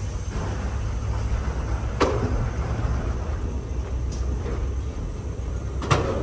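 Steady low rumble of an airliner cabin, with two sharp clicks or knocks, one about two seconds in and one near the end.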